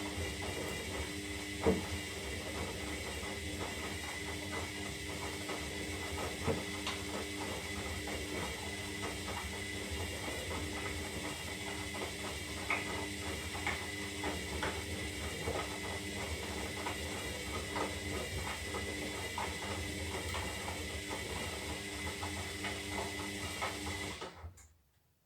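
Zanussi Lindo 300 washing machine running: a steady motor hum and whine with many light, irregular clicks and taps from the turning drum. It cuts off suddenly about a second before the end.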